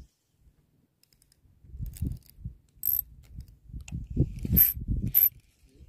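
A Tridentech Killer 20 spinning reel being cranked in spurts to retrieve a squid jig: mechanical clicking and rattling from the handle and gears, mixed with knocks from handling the rod. It starts about two seconds in and stops near the end, with a few sharp clicks among the rattling.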